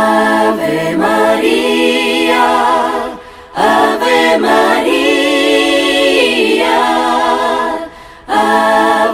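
Voices singing a cappella, with no instruments: long held phrases with vibrato, broken twice by short pauses.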